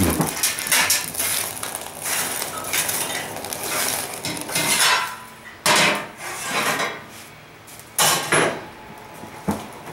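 Lumps of charcoal clattering and scraping against the steel forge pan as they are piled onto a freshly lit fire, in a run of irregular crunches and knocks with a few sharp clanks.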